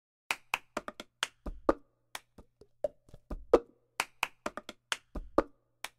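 Recorded cup-game percussion as music: claps and taps with a cup knocked down on a table, in a quick uneven rhythm, a few strikes carrying a deeper thump.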